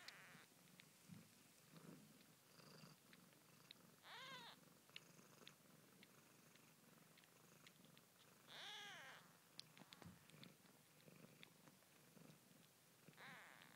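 One-day-old Siamese kittens mewing: three short, high calls, each rising and falling in pitch, about four and a half seconds apart, over a low steady purr.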